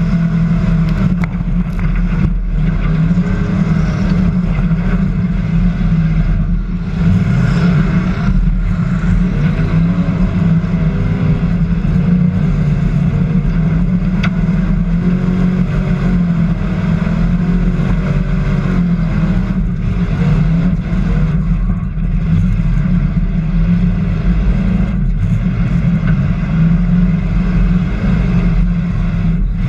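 Hobby stock race car engine heard loud from an in-car camera, running continuously with its revs rising and falling as it laps a dirt oval.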